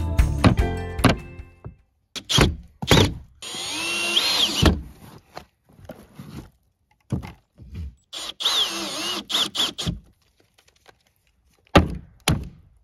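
Cordless drill driving screws into plywood siding panels. There are two short runs, each about a second, with the motor's pitch rising and falling as the screw bites. Knocks from handling the panels and the drill come between and after the runs.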